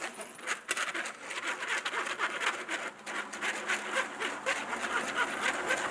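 A sticky mixture of PVA glue and shaving foam being stirred: a fast, irregular run of wet squelching clicks.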